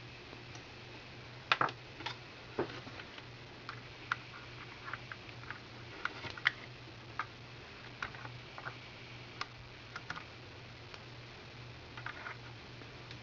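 Scattered small clicks and taps of hand tools and small parts being worked on inside an open Betamax VCR's tape-transport mechanism during belt and idler replacement, at an irregular pace, the loudest about a second and a half in. A low steady hum runs underneath.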